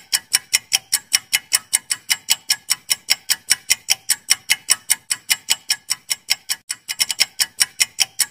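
Countdown timer sound effect: a clock ticking fast and evenly, about five ticks a second, with a brief hitch in the rhythm about six and a half seconds in.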